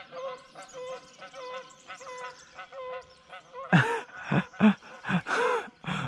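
A flock of geese honking: a chorus of many short calls, then from about three and a half seconds in, louder honks in quick succession.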